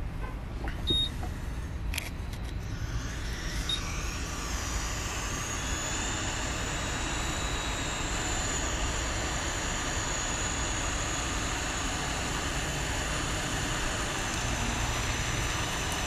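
Hot-air rework station blowing at 350 °C with airflow at 50, coming up over the first few seconds to a steady hiss, heating the solder on a phone charging port to free it. A few clicks come near the start.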